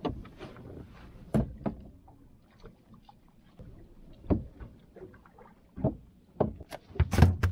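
Scattered knocks and bumps on a small boat as fishing line is hauled in by hand and a large fish is brought aboard, with a cluster of louder thumps near the end.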